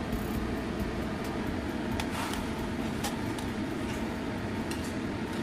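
Water boiling hard in a stainless steel wok over a gas burner: a steady rumbling bubble. A few light metal clinks from a slotted skimmer against the wok come about two to three seconds in.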